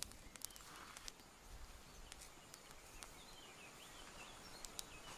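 Faint crackling of a burnt-down dry-grass fire: a few scattered pops and ticks as the flames die to smoke. A small bird chirps faintly about three seconds in.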